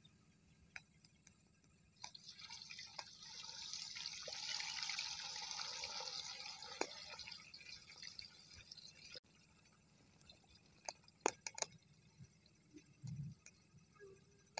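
Raw potato slices sizzling in hot oil in a wok, a crackling hiss that swells about two seconds in and cuts off suddenly about nine seconds in. Scattered sharp pops follow.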